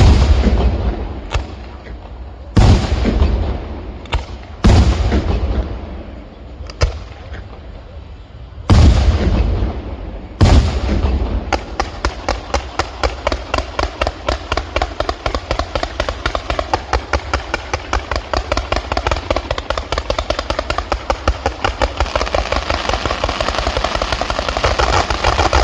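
Fireworks display: several heavy aerial shell bursts booming one after another, each with a ringing tail. From about eleven seconds in, a long rapid run of sharp reports, several a second.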